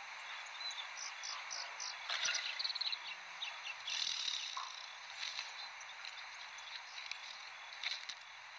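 Outdoor background ambience: a steady hiss with short, high-pitched chirps in quick little runs and a few sharp clicks.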